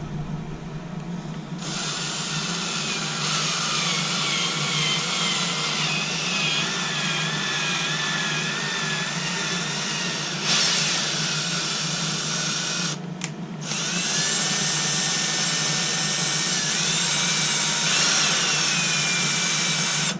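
Hand drill in low gear power-tapping a 3/8-inch coarse thread into a wooden clamp block, its motor whining steadily as the tap cuts. It starts about a second and a half in, stops briefly about two-thirds of the way through, then runs again.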